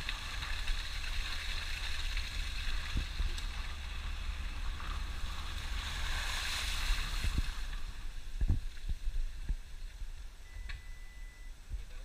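Suzuki Jimny driving slowly over a rutted dirt road, heard from a camera fixed outside on the body: a steady low rumble with wind on the microphone and a hiss. A few sharp knocks come as the 4x4 jolts over ruts, the loudest a little past the middle.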